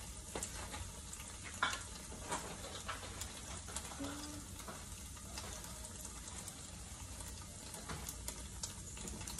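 Udon noodles sizzling in oil and sauce in a frying pan: a steady sizzle with scattered sharp crackles.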